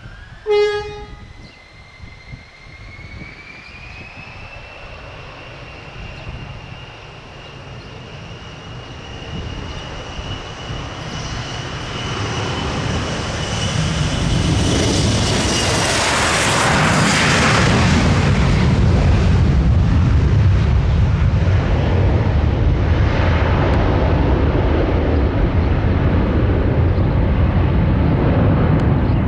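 Gulfstream G650 business jet's twin Rolls-Royce BR725 turbofans spooling up with a rising whine, then the jet noise builds steadily as the aircraft rolls for takeoff, loud and steady through the second half. A brief sharp tone sounds about half a second in.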